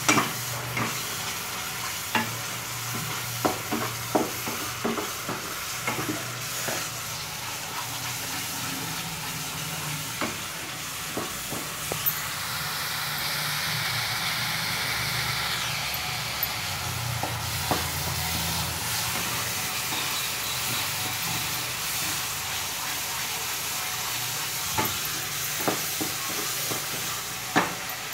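Thick mango pulp, sugar and grated coconut mixture sizzling steadily in a non-stick pan over a low gas flame, with scattered knocks and scrapes of a wooden spatula against the pan as it is stirred.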